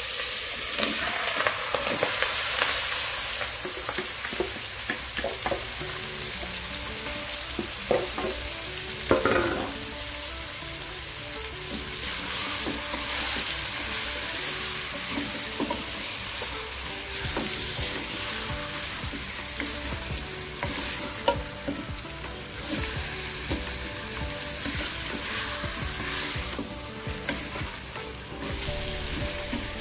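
Chili-marinated pork and chicken feet sizzling in hot oil in a metal pot while being stirred with a wooden spatula. A steady frying hiss runs under the stirring, with a few sharp knocks of the spatula against the pot.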